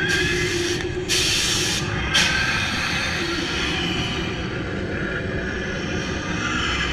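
Amusement ride vehicle rumbling steadily along its track through a dark ride. Two sharp hissing blasts come about a second and two seconds in.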